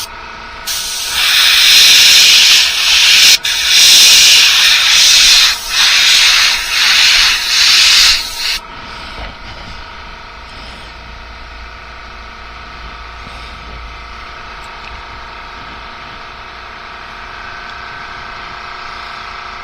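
Airbrush spraying paint in a series of short hissing bursts, which stop about eight and a half seconds in, leaving a quieter steady hum.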